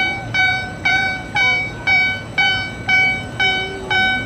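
Movement warning alarm of a railway depot traverser (transfer table) sounding as it slides across the yard: a loud pitched tone repeating about twice a second, each pulse struck sharply and fading.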